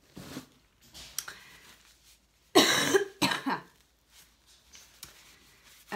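A woman with a cold coughing twice about halfway through, the first cough louder and longer than the second.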